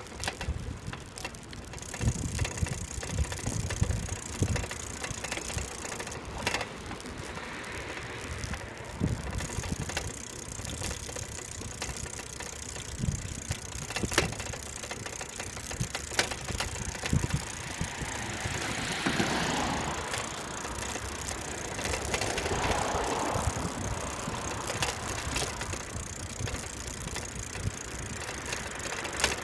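A bicycle rolling along an asphalt path, heard from a handlebar-mounted camera: tyre rumble and the odd rattling knock from the bike, with wind buffeting the microphone. The noise swells for a few seconds about two-thirds of the way in.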